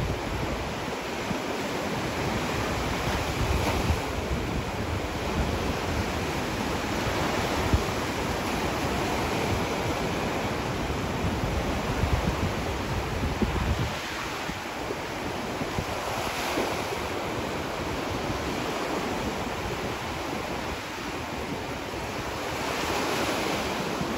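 Small waves breaking and washing up a sandy beach in a steady surf wash that swells every few seconds. Wind rumbles on the microphone, easing about halfway through.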